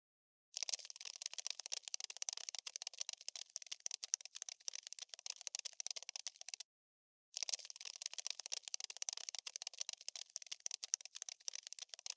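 Cockroach scurrying sound effect: a dense, rapid, high-pitched scratchy clicking like tiny legs skittering. It starts about half a second in, stops for under a second a little past halfway, then carries on.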